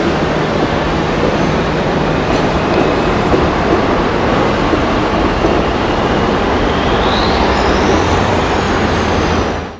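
A Flushing Line subway train running with a steady rumble of wheels and motors. A faint wheel squeal rises in pitch about seven seconds in, and the sound cuts off abruptly near the end.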